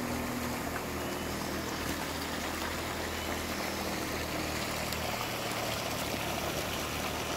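Steady rush and trickle of water flowing in a fish pond being drained, with a faint low hum underneath that fades about halfway through.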